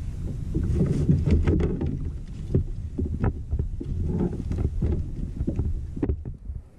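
Wind buffeting the microphone in a gusty, uneven rumble, with scattered sharp knocks and clicks from the kayak and fishing gear while a hooked fish is reeled in.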